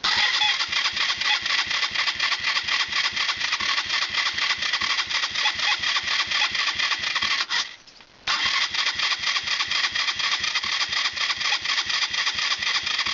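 Motorcycle making a fast, even, rhythmic mechanical noise that sounds really bad: the weird noise this bike keeps making. It cuts out for a moment about two-thirds of the way through, then starts again.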